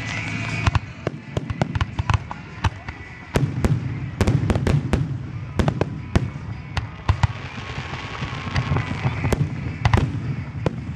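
Aerial fireworks display: a dense run of sharp crackling reports throughout, with heavier low booms from bursting shells in two clusters, about a third of the way in and near the end.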